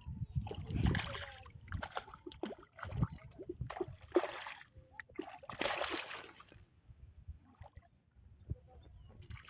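Water splashing and sloshing beside a small boat, in several short splashes, the loudest about four and six seconds in, with low knocks in between.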